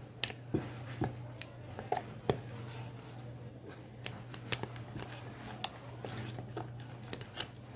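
Glue-based slime mixture being stirred by hand on a tabletop: scattered soft clicks and sticky, wet ticks, over a steady low hum.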